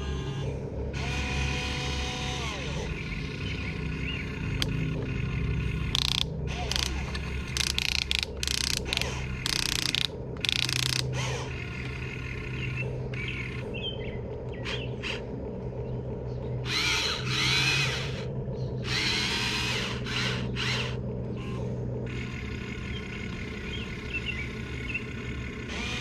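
Electric motors of a Huina 1593 RC excavator whirring in repeated short runs as the boom, arm and bucket are worked, over a steady low hum.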